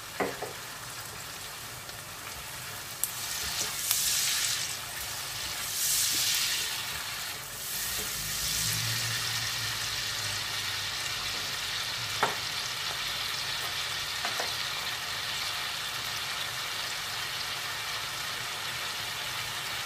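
Chopped onions, garlic and scotch bonnet pepper sizzling in melted butter and soy sauce in a frying pan while being stirred with a silicone spoon. The sizzle surges several times in the first half, then settles into a steady fry, with a few sharp knocks.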